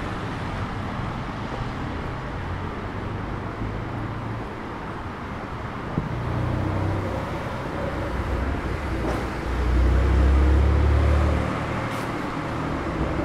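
City street traffic: cars driving past with a steady low rumble, swelling louder as a vehicle passes close about ten seconds in.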